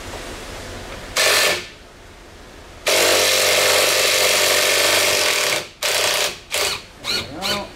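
Cordless impact hammering on the bottom Allen bolt of a dirt bike fork leg to break it loose. There is a short burst about a second in, then a longer burst of nearly three seconds.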